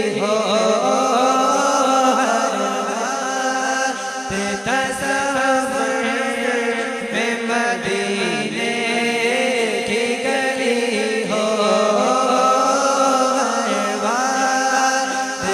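Man singing a naat, his unaccompanied voice drawn out in long, gliding melodic lines over a steady low drone.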